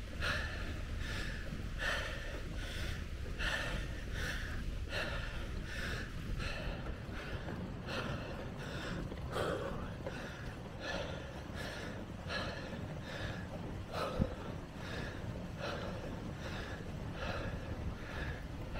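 A cyclist breathing hard and fast, about two breaths a second, over a steady low rumble of wind on the microphone. A single sharp knock comes about fourteen seconds in.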